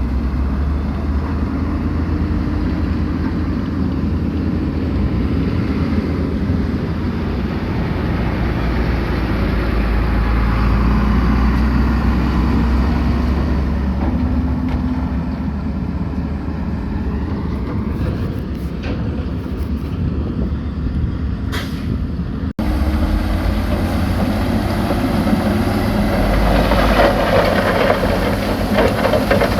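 Heavy diesel construction machinery running steadily with a deep low rumble. It breaks off abruptly about three quarters of the way through and resumes, with a rougher rattling clatter building near the end.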